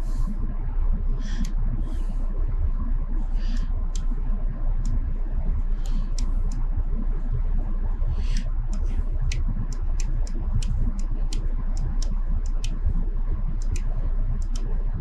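CNC bridge saw humming steadily as its arbor is jogged slowly toward a dial indicator, with scattered light clicks and ticks over the hum.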